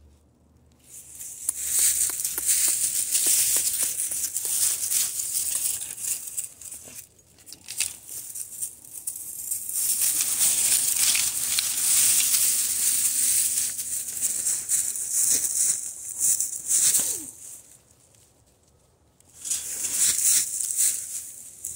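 Dry fallen leaves rustling and crunching under footsteps, in long stretches broken by two short pauses.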